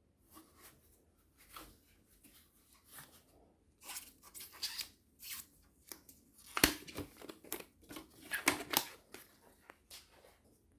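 Packaging being handled and opened: a run of short rustles, scrapes and knocks, busiest in the second half, with the sharpest knock about six and a half seconds in.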